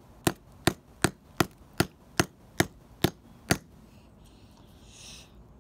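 A hammer strikes an iPhone lithium-ion battery lying on concrete: about nine sharp blows at a steady two to three a second. After the blows stop, a short faint hiss follows.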